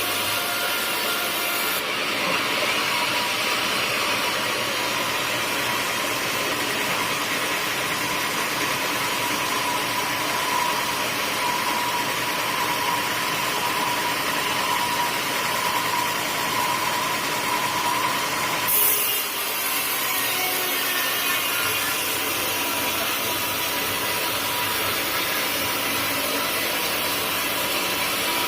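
Sawmill saw running steadily while cutting teak wood, with a steady whine through the cut. About two-thirds of the way through there is a brief louder moment and the sound changes abruptly.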